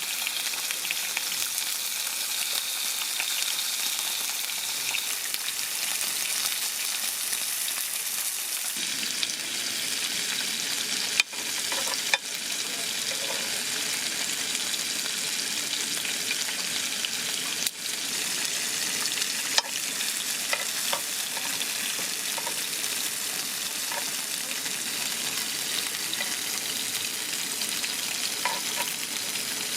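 Food, most likely meat, sizzling steadily in a hot pan or on a grill, with a few sharp clicks along the way.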